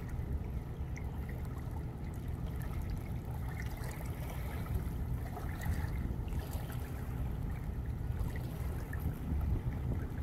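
Wind buffeting the microphone in a steady low rumble, over river water lapping and trickling at the shore, with scattered small clicks.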